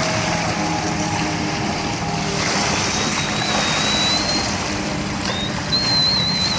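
Jet ski engine running as it speeds past, a steady drone over a wash of water and wind noise. A thin, high wavering whistle sounds twice in the second half.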